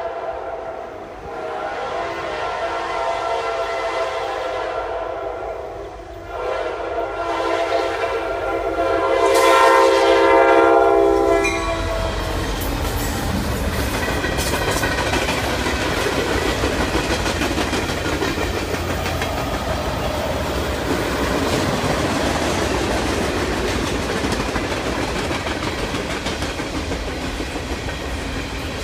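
Norfolk Southern freight train led by an EMD SD70: the locomotive's air horn sounds two long blasts, the second louder, as the train approaches. Then the locomotives pass and the freight cars roll by with a steady rumble and clatter of wheels on the rails.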